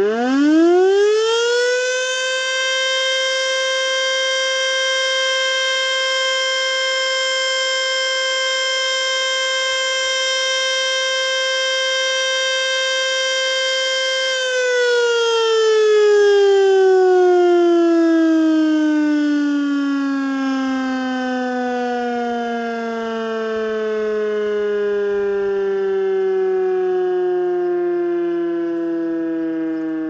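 Elektror S3B electric motor siren sounding a test. It winds up quickly to a steady high tone and holds it for about fourteen seconds, then winds down slowly, its pitch still falling near the end.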